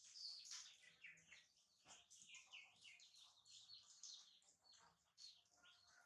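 Faint chirping of small birds: many short, high notes in quick succession, sweeping downward.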